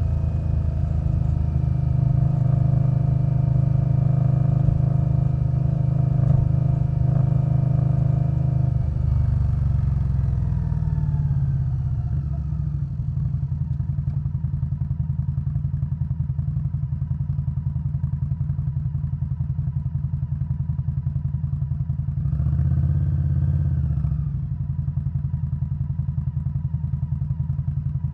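Indian Scout Bobber's 1133 cc V-twin through Vance & Hines Twin Slash pipes, running steadily under way, then rolling off with the engine note falling after about nine seconds. It settles into a lower, evenly pulsing idle-like lope, with a brief louder swell a little past the two-thirds mark.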